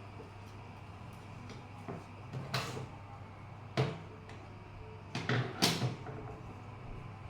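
A few sharp clicks and knocks of plastic parts and tools being handled while a broken extension-cord socket is repaired, over a steady low hum.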